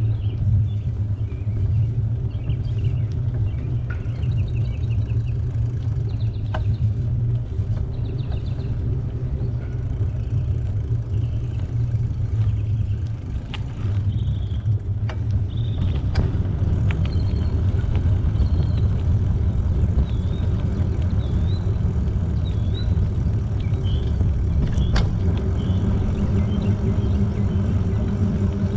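Steady low rumble of wind and tyre noise on a camera carried on a moving bicycle, getting a little louder about halfway through, with a few sharp clicks and faint short bird chirps above it.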